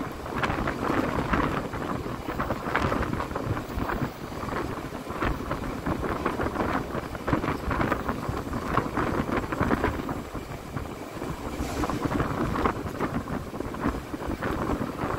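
Wind gusting on the microphone over the steady rumble of a narrow-gauge passenger train rolling along the track, heard from outside an open car.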